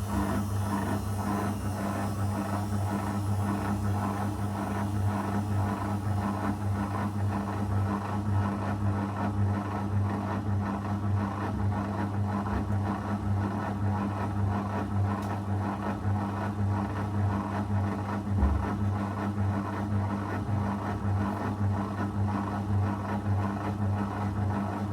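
Zanussi FL984CN front-loading washing machine running mid-program, a steady motor hum with the drum turning.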